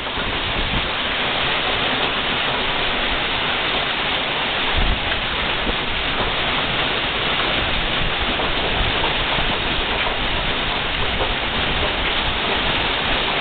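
Heavy hailstorm: hail and rain pouring down and drumming on surfaces in a steady, dense hiss, with one low thump about five seconds in.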